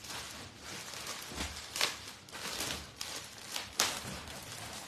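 Rustling and brushing handling noises, with sharper swishes about two seconds and about four seconds in.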